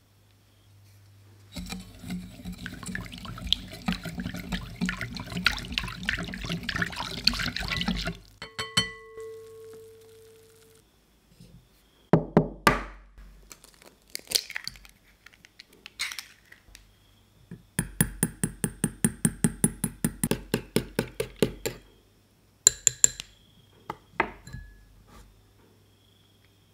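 Kitchen mixing sounds in a bowl: several seconds of continuous stirring, then a short ringing tone and a few knocks. A run of rapid, even clicks follows as eggs are beaten in a ceramic bowl, with a few more knocks near the end.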